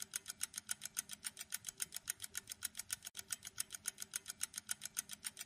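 Quiz countdown-timer sound effect: quiet, fast, even clock-like ticking, about five ticks a second.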